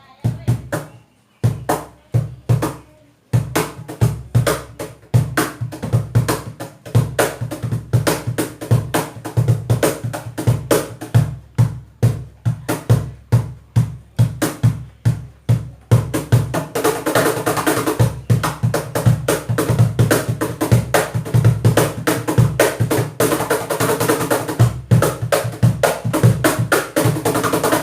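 Wooden cajón played by hand: a few single hits, then a steady groove of deep bass tones and sharp slaps that turns busier and brighter about sixteen seconds in.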